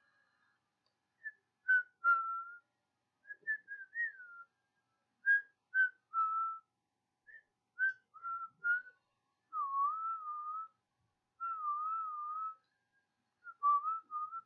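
A person whistling a tune, a string of short notes and then longer wavering ones, some held about a second, with short pauses between phrases.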